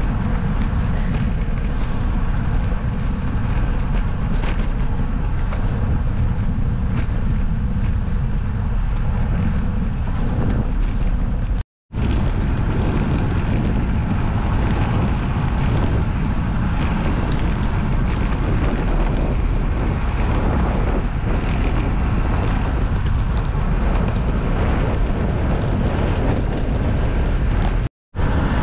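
Wind buffeting the microphone of a camera riding along on a bicycle, a loud, steady low rumble. The sound drops out for an instant twice, about twelve seconds in and near the end.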